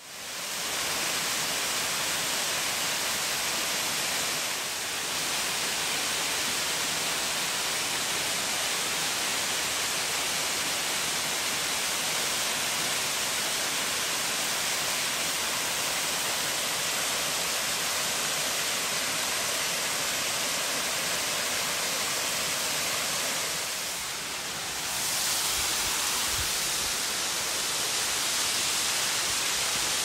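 A 22 m branched waterfall pouring over rock: a steady, even rush of falling water.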